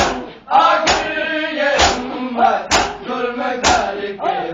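Men's voices chanting a noha in unison over matam: hands slapping bare chests together about once a second, five sharp strokes, the slaps louder than the voices.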